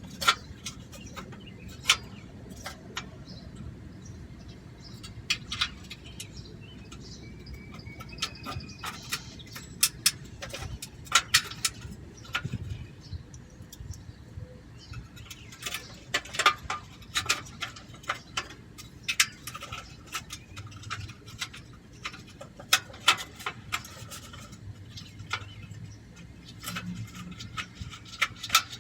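Scattered light clicks and knocks, irregular and sometimes in quick clusters, as the loose sheet-metal heat shields and a bolt are handled and shifted against the rear catalytic converter while a bolt is being started.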